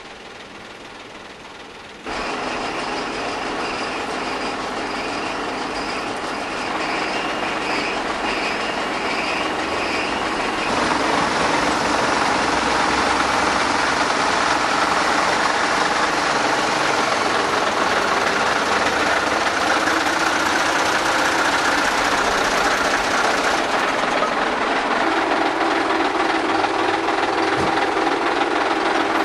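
Heavy truck engine running, a steady loud rumble with mechanical noise that comes in abruptly about two seconds in and gets louder about ten seconds later.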